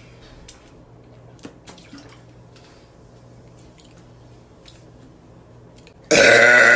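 A few faint clicks over a low steady hum, then about six seconds in a young woman starts a loud, long, deep-pitched burp.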